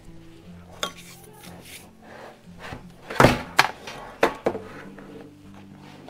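Knocks and clicks of the ash vacuum's plastic lid and filter assembly being picked up and handled, the loudest knock about three seconds in, with soft background music underneath.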